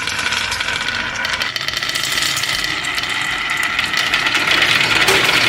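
A small engine running steadily, with a fast even pulsing, growing louder toward the end.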